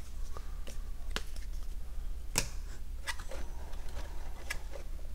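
Light, scattered clicks and taps of cardboard and plastic game components being handled as a cardboard box is lifted out of a board game box, with a sharper click about two and a half seconds in.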